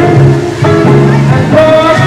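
Loud music with held instrumental notes changing in pitch, dipping briefly about half a second in.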